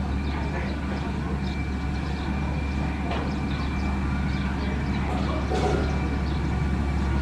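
Diesel engine of heavy road-building machinery running steadily, a constant low hum with no change in speed.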